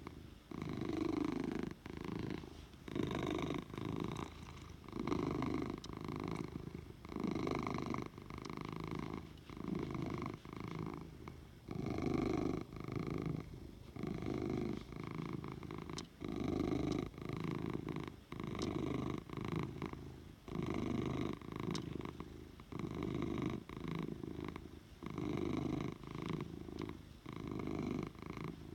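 Domestic cat purring loudly and steadily, the purr swelling and fading with each breath in and out.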